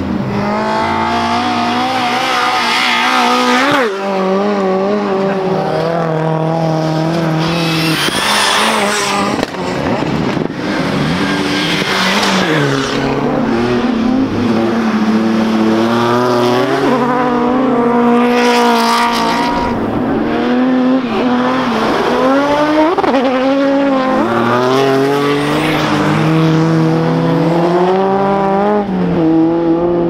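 Rally car engines revving hard and changing gear as cars accelerate out of corners and pass one after another, the pitch climbing and dropping again and again. There are louder noisy surges about eight seconds and eighteen seconds in.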